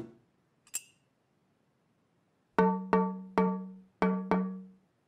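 Metal bread bin struck five times with a small kitchen utensil, three strikes then two, each giving the same ringing note that dies away. A soft knock and a light click come first.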